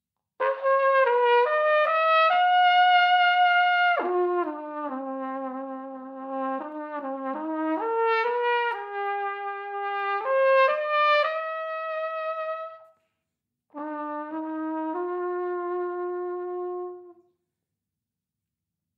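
Unaccompanied flugelhorn playing a slow melodic solo, one note at a time. A long phrase starts high, steps down into the low register and climbs again. After a short breath, a shorter closing phrase ends on a held low note.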